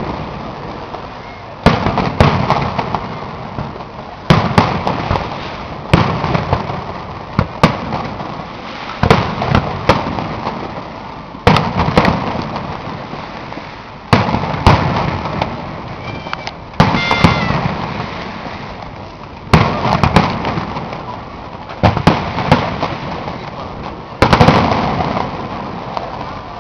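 Fireworks display: aerial shells bursting with a loud bang roughly every two seconds, each bang trailing off in an echo before the next.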